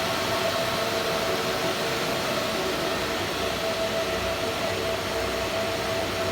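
Four high-speed cooling fans on a computer rig running flat out: a loud, steady rush of air like a jet, with a steady whine running through it.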